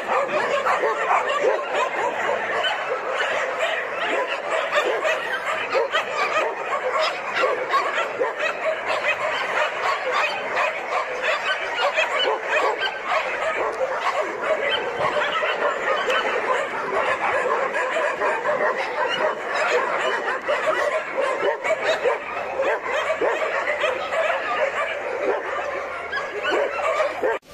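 Many dogs barking at once, a dense, unbroken chorus of overlapping barks.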